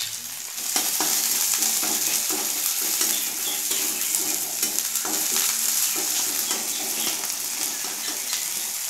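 Sliced onions sizzling in hot oil in a steel kadai, stirred and scraped around the pan with a spatula. The sizzle grows louder about half a second in.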